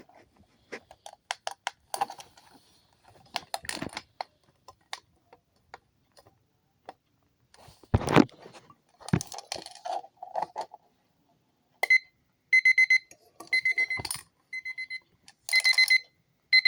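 Alarm clock going off: a high electronic beep repeating in quick groups, starting about twelve seconds in. Before it come irregular clicks, knocks and handling noise, the loudest a thump about eight seconds in.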